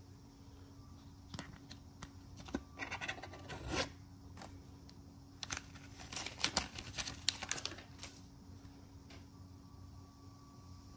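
Folded paper instruction leaflet rustling and crinkling as it is handled and pulled out of a phone case, in two bursts of crackly handling noise, with a single click a little later. A faint steady hum runs underneath.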